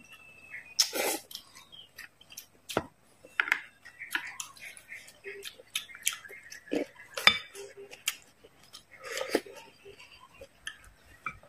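Close-miked eating: noodles slurped in short noisy bursts, chewing and mouth sounds, and sharp clicks of utensils against a glass bowl.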